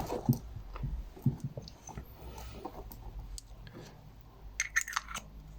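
Light handling noises from a PGO-7 scope's battery cable and its accessories being moved about: scattered soft clicks and taps, with a quick run of sharper clicks near the end.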